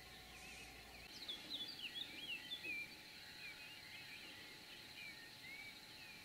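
Faint songbird singing: quick, varied chirping notes, busiest for a couple of seconds from about a second in, then thinning out, over a faint steady high-pitched whine.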